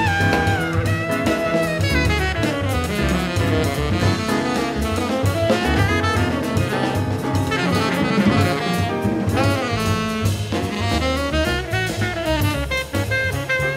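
Live jazz quartet playing: a tenor saxophone leads with a flowing line of curving, bending phrases over piano, upright bass and a drum kit with cymbals.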